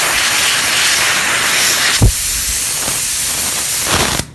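Compressed air hissing steadily out of a leaking air blow gun while it is connected to the air line. The hiss cuts off suddenly near the end, and there is a single thump about two seconds in.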